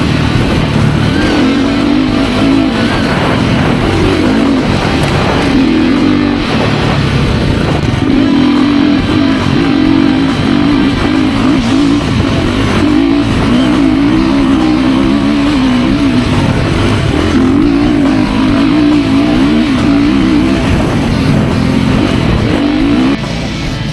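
Guitar-driven background music, steady and loud, over the sound of a dirt bike's engine being ridden on a trail, its pitch rising and falling with the throttle.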